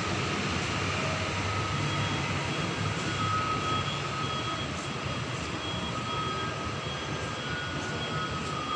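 Steady city traffic noise: a continuous rumble of vehicle engines from the street, with a faint whine drifting in and out.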